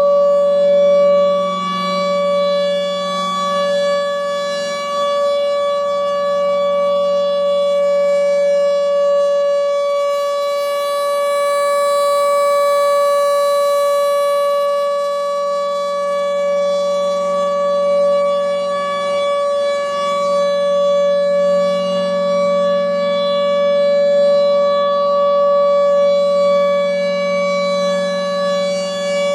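Federal Signal Thunderbolt 1000 outdoor warning siren sounding the alert signal: one steady, unwavering tone that swells and fades slowly in loudness as the rotating siren turns.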